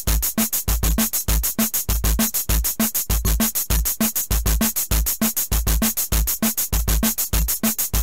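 Electronic background music with a steady drum-machine beat: deep bass thumps, a short repeated synth note and fast, even hi-hat ticks.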